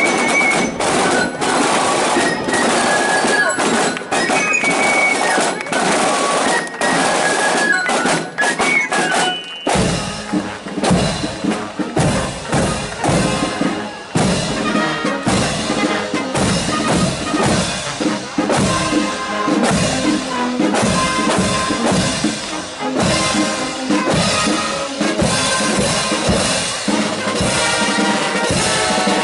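Marching drum corps playing a march: snare drums under a high, piping melody. About ten seconds in, the sound changes abruptly to a fuller band with bass drum and cymbals keeping a steady beat.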